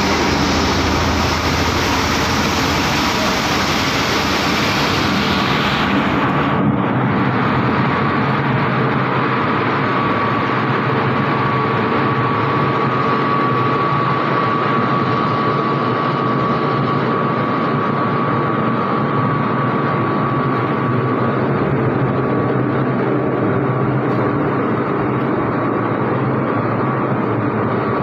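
Plastic agglomerator running loud and steady as it churns fishing-net scrap. For the first six seconds or so a loud hiss rides over it while water is poured into the drum to shock-cool the hot plastic and steam comes off; the hiss cuts off suddenly, leaving the machine's steady run with a faint thin whine.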